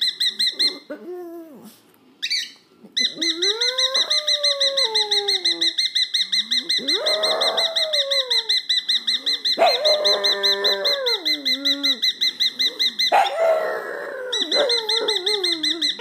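A cockatiel giving a fast, steady, high-pitched warbling trill, broken by a few short pauses, while a pug answers with several lower howls that slide up and then fall away.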